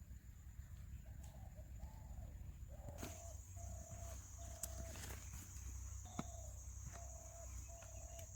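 A bird calling: a run of short, level notes repeated at an even pace from about a second in, with a few sharp clicks over a steady low rumble.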